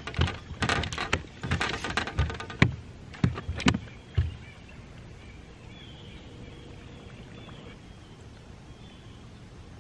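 Fishing reel being cranked as a small bass is reeled in and swung aboard the boat: a run of irregular clicks, knocks and rattles for about four seconds, then it goes quiet.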